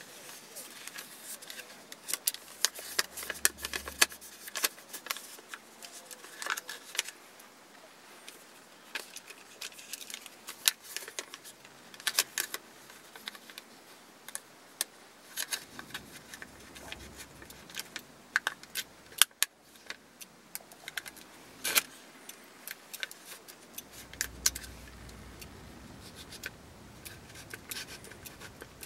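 Small clicks, taps and light rattles of a plastic and metal roll-film insert being handled while a roll of medium-format film is loaded into it. A few sharper snaps stand out.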